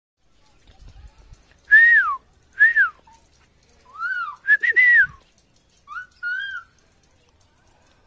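A parakeet giving short, clear whistled calls, each note rising and then falling in pitch. The calls come in about five groups, some as quick runs of two or three notes, and stop a little over a second before the end.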